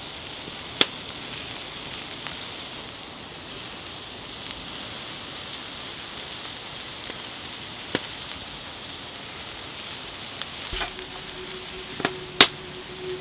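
Chicken and beef skewers sizzling on a hot griddle plate over a wood fire, a steady hiss broken by a few sharp clicks, the loudest about a second in and near the end.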